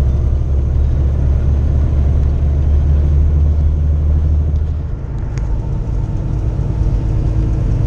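Low, steady drone of a Kenworth T680 semi-truck's diesel engine and road noise heard from inside the cab at highway speed. The drone dips and changes about five seconds in.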